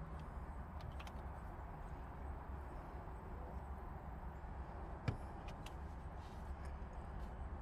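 A steady low hum with a few faint clicks, and one sharp click about five seconds in, as of small plastic parts being handled.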